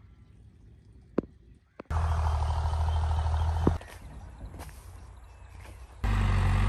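A motor engine running steadily close by, a low even hum that starts abruptly about two seconds in and cuts off about two seconds later. It comes back loud near the end, with quieter outdoor ambience between.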